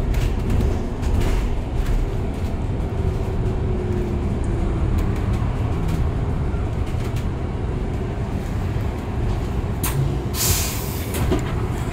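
Cabin noise of a BYD/ADL Enviro400City electric double-decker bus on the move: steady low road and tyre rumble with scattered rattles and clicks from the body. A short burst of hissing air comes about ten seconds in, typical of the bus's air brakes.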